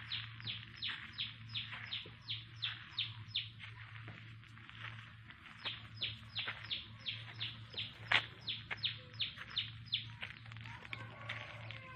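A bird calling in long rapid series of down-slurred chirps, about four a second, pausing briefly midway, over a steady low hum. There is one sharp click about eight seconds in.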